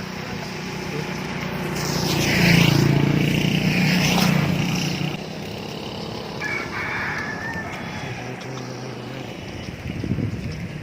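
A motor vehicle's engine passes, loudest about two to five seconds in, and a rooster crows in the rural background.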